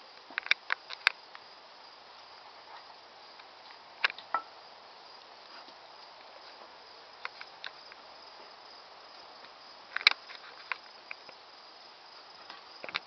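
Insects trilling steadily at a high pitch, with scattered sharp clicks and taps in small clusters: about a second in, about four seconds in, and a louder group about ten seconds in.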